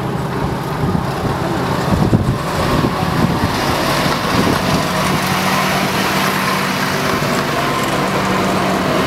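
Narrow-gauge diesel locomotive running past at close range as it pulls its coaches into the station, a steady engine note over the noise of the coaches' wheels on the rails.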